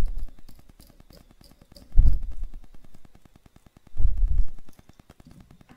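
Low muffled bumps, three of them about two seconds apart, as a screw is tightened into the iPhone 4's battery bracket with a small precision screwdriver: handling noise of the hands and driver on the phone.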